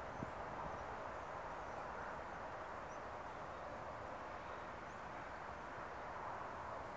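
Steady outdoor ambience: an even, unbroken hiss with no distinct events.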